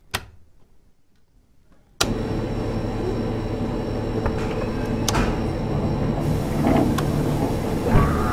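A switch clicks on a machine's control panel, then about two seconds in the machine starts abruptly and runs with a steady mechanical hum, with a few small clicks over it.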